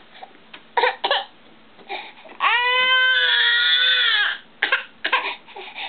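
A 10-month-old baby crying: a few short sobs, then one long, steady wail of about two seconds, then more short sobs.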